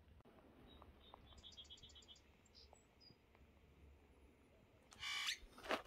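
Quiet outdoor ambience with a faint, rapid chirping trill of about eight high chirps in under a second, roughly a second and a half in. A short rustle of handling noise comes near the end.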